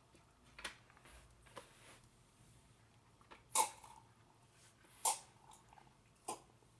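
Young kittens giving short mews, five in all, the two loudest near the middle.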